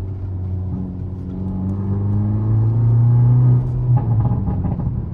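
Hyundai Elantra N's turbocharged 2.0-litre four-cylinder running with its exhaust resonator deleted, revved slowly upward for about three seconds, then dropping back sharply just before four seconds in. The exhaust sounds aggressive with the resonator gone.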